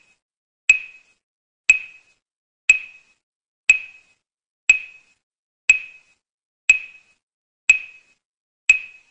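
A sharp, metronome-like tick with a brief ringing tone, repeating steadily once a second: a pacing beat for the eye exercise. Nine identical ticks are heard.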